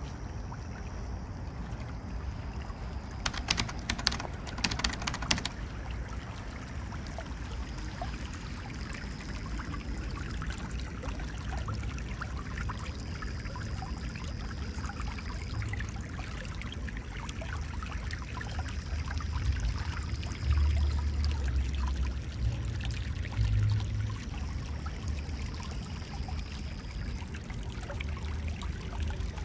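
Shallow streamlet trickling and gurgling over stones. A short run of sharp clicks comes a few seconds in, and low rumbles come about two-thirds of the way through.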